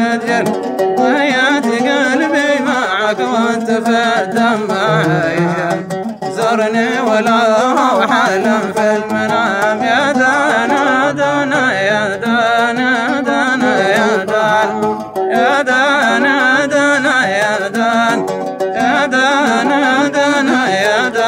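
Yemeni dan music: an oud and a mizmar reed pipe playing an ornamented melody.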